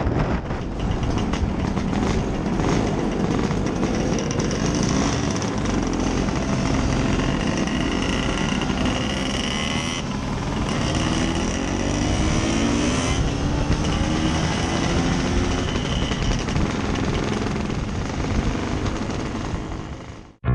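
Scooter engine running on the move, its pitch rising and falling as the rider speeds up and eases off, under a steady rush of road and wind noise. It fades out near the end.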